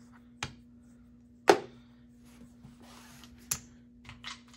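Casino chips being picked up and set down on a felt blackjack table: a few separate sharp clicks, the loudest about one and a half seconds in.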